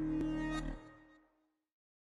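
Intro theme music ending on a held low note. It fades out about a second in, then there is silence.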